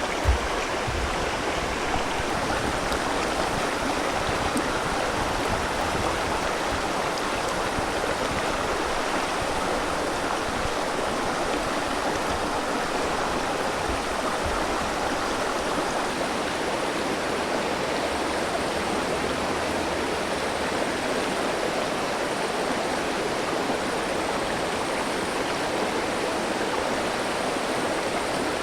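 River water flowing, a steady rushing with no let-up. There is one brief knock just after the start.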